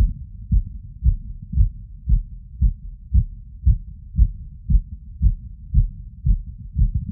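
Human heartbeat heard through a wireless electronic stethoscope on the chest: fast, evenly spaced low thumps, about two a second, raised from a 3 km run, over a faint steady low rumble.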